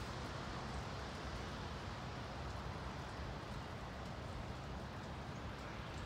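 Steady outdoor background noise with an unsteady low rumble of wind buffeting the microphone.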